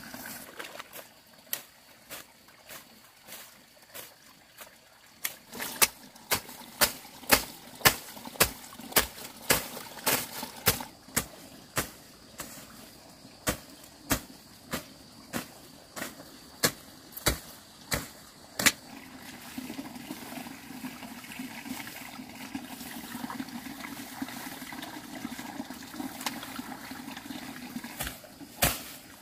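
A series of sharp knocks or strikes, spaced out at first and then about two a second, stopping about two-thirds of the way through. A steady low rushing noise follows, with a couple more knocks near the end.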